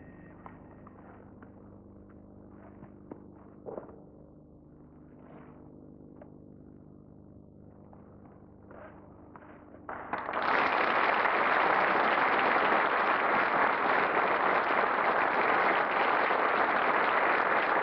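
A quiet stretch with a faint steady hum and a few small knocks, then an audience starts applauding about ten seconds in and keeps up steady applause.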